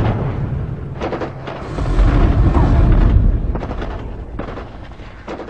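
Intro sound effects of booming explosions and scattered gunshot-like cracks over a deep rumble. The rumble swells about two seconds in, then fades away near the end.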